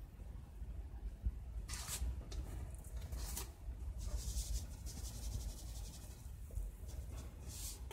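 Faint, scattered rustling and scraping as seasoned raw chicken pieces are handled and mixed in a pot, over a low steady hum.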